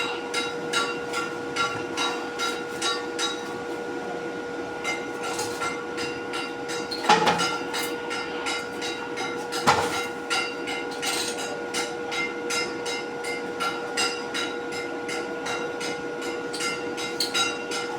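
A machine hums steadily under fast, uneven clicking, with two louder metallic knocks about seven and ten seconds in.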